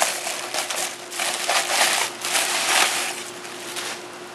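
Plastic bubble wrap crinkling and crackling as a computer power supply is pulled out of its bubble-wrap bag. The crackle is thickest in the middle and dies down near the end.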